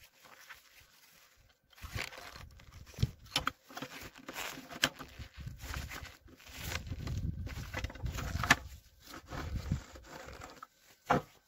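Needle-nose pliers working on a toy truck's metal chassis during reassembly: irregular metal clicks and short scrapes, with the rustle of gloved hands. A sharp knock about a second before the end as the truck is set down.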